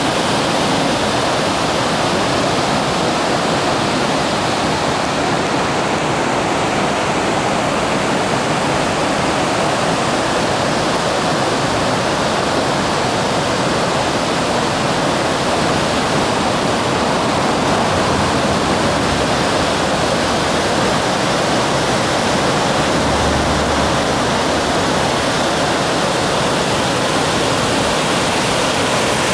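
Falls of Dochart, the River Dochart's white-water rapids, rushing over rock ledges: a loud, steady wash of falling water that never lets up.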